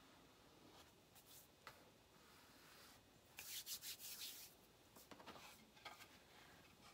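Faint rubbing and rustling: hands brushed together for about a second midway, followed by lighter handling sounds as a painted wooden egg cutout is picked up.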